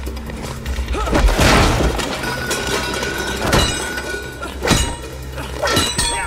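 Dubbed-in fight sound effects: a loud crash about a second in, then several sharp punch and kick hits, over background music with held tones.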